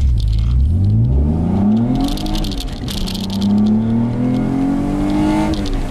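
Infiniti I30's 3.0-litre V6 accelerating hard, heard from inside the cabin. The revs climb for about two seconds, drop at an upshift, climb again more slowly, then drop at a second shift near the end, with a hiss that comes and goes above the engine.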